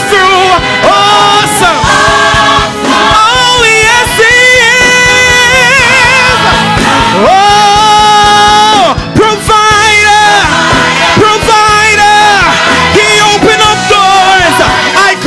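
Gospel praise music: a singer's voice with strong vibrato, sliding between notes and holding long notes, over band accompaniment.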